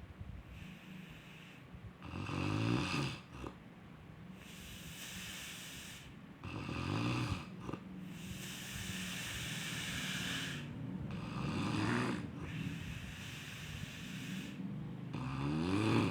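Snoring: four rattling snores a few seconds apart, each followed by a long breathy hiss.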